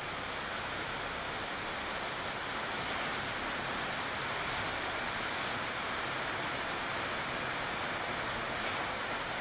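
Heavy tropical downpour: a steady, dense hiss of rain, with water pouring off the edges of umbrellas and awnings.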